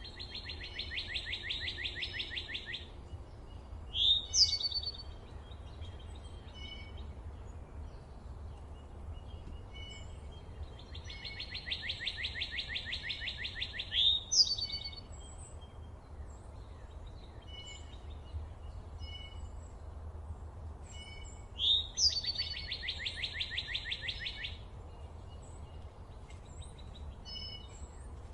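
Songbirds singing: a rapid, dry trill about three seconds long, repeated three times about ten seconds apart, with a short, loud upward-sweeping call near each trill. Scattered faint chirps sound between them over a steady low rumble.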